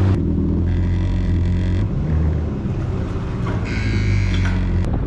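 Yamaha FX Cruiser HO WaveRunner's four-stroke engine running at slow, no-wake speed. It makes a steady low hum whose pitch shifts slightly.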